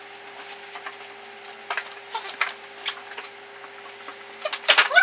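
A few light taps and clicks over a steady low hum, then a louder burst with a short vocal sound near the end.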